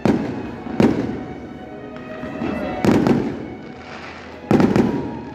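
Aerial firework shells bursting: a bang at the start, another just under a second in, one near three seconds and a quick cluster of bangs about four and a half seconds in, each fading away in echoes.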